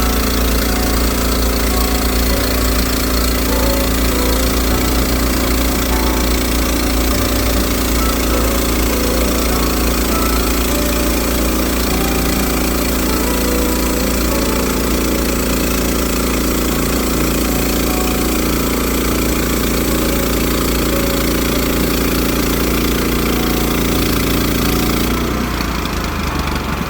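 An engine running steadily, its sound thinning and dropping slightly near the end.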